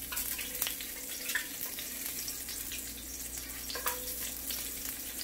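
Diced red onion sizzling as the pieces drop into hot oil in a cast iron skillet: a steady hiss with scattered crackles and pops.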